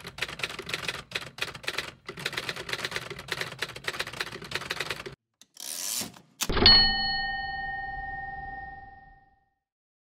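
Manual typewriter keys clacking in quick succession for about five seconds. Then a short sliding rasp and a single bell ding, which rings and fades over a couple of seconds.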